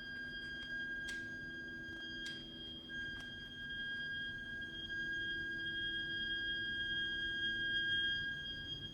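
Heating system's heat interface unit (HIU) and pipework giving a continuous shrill, high-pitched whistle: a steady tone with a higher overtone, with a few faint clicks in the first three seconds. It is an abnormal plumbing noise that sounds even when the heating and hot water are not in use.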